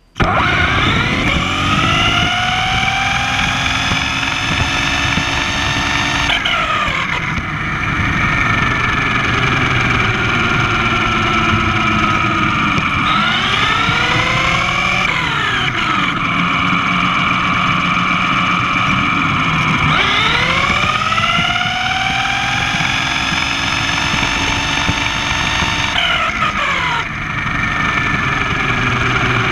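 Electric drive whine of a 1/10-scale Traxxas-based RC race car, heard from on board: the whine rises in pitch as the car speeds up along each straight and drops as it slows, three times over, with a steady rumble underneath.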